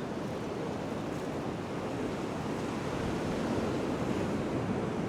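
Sea swell washing against the pier barrier: a steady surf noise that swells a little around the middle.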